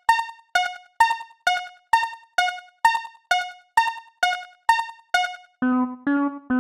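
Japanese railroad crossing warning bell ringing "kan-kan", about two strikes a second alternating between a higher and a lower tone. Near the end it changes to a much lower-pitched, longer-ringing bell at the same pace.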